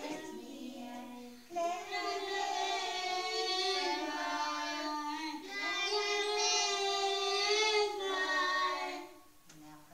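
A group of young children singing a song together in held notes, louder from about a second and a half in and trailing off near the end.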